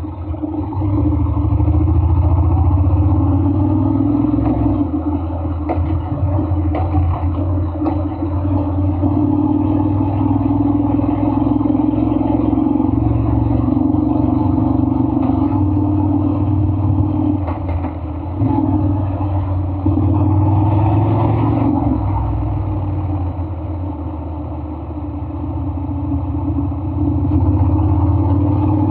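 Honda Forza 750 maxi-scooter's parallel-twin engine running steadily. Its level eases off and picks up again a couple of times.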